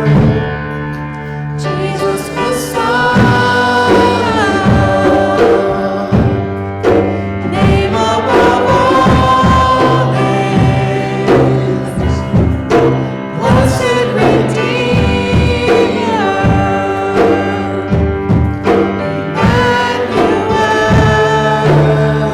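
Worship music during a church service: voices singing a song over a backing of instruments, with a steady drum beat.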